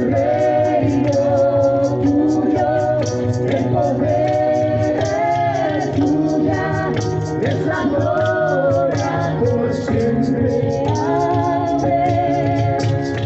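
Christian worship song: voices singing a sustained melody over instrumental accompaniment with a steady beat.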